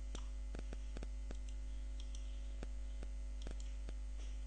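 Steady electrical mains hum with a scattering of irregular light clicks from a computer mouse, as lines are drawn in a paint program.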